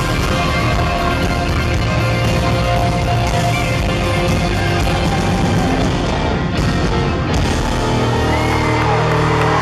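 Live band playing with an electric guitar lead over drums, with bent notes gliding in pitch near the end.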